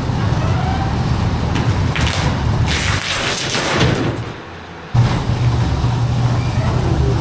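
Heavy vehicle engine running with a steady low rumble, with a loud rushing hiss about two to four seconds in. The sound dips briefly and comes back abruptly about five seconds in.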